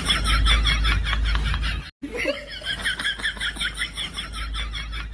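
Canned laughter sound effect: quick, rapid ha-ha pulses from several voices. It cuts out for an instant about two seconds in and starts over.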